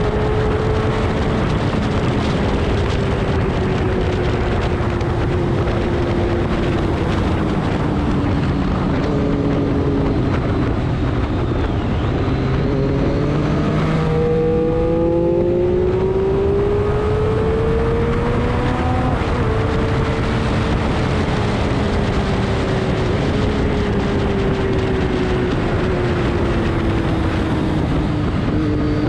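Race car engine running hard on a track, its pitch sinking slowly, then dropping around the middle and climbing again as the throttle comes back on, over a steady rush of noise.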